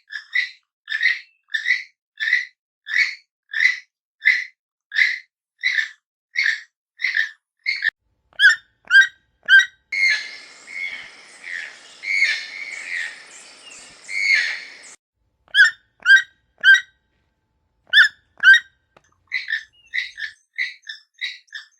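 Toucan calling: a long regular series of repeated calls, about one and a half a second, then sharper single calls. A stretch of dense overlapping calls comes about midway, and quicker calls follow near the end.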